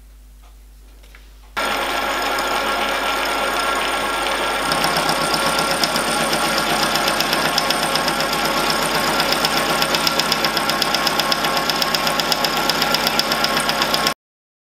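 Small vertical milling machine starting up about a second and a half in and running with a steady whine of several tones. About three seconds later a fast, even pulsing, about five a second, joins in as the end mill cuts the side of a 10 mm round rod end down to 8 mm width. The sound stops abruptly just before the end.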